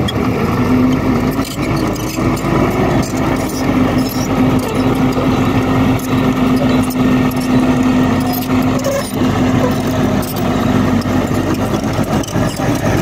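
Bulldozer engine running steadily under work, with a constant droning tone that drops away near the end.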